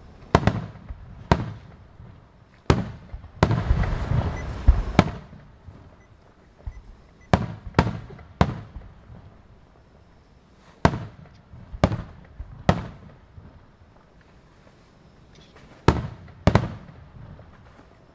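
Aerial fireworks shells bursting: sharp bangs, each followed by a booming echo, coming irregularly with short pauses between, and a dense run of crackling bursts about three to five seconds in.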